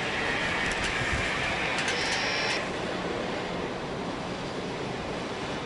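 Steady mechanical work noise, a dense rushing hiss with a few light ticks. A higher hissing part and a thin high whine stop about two and a half seconds in, while a lower steady noise carries on.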